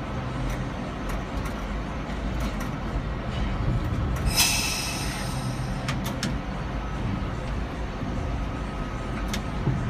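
R38/R40 Slant subway train heard from the cab, running slowly over the track with a steady rumble. A brief high-pitched hiss comes about four and a half seconds in, with a few sharp clicks later on.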